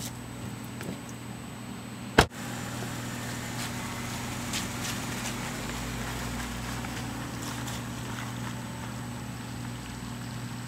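A car engine runs with a steady hum. One sharp click comes about two seconds in.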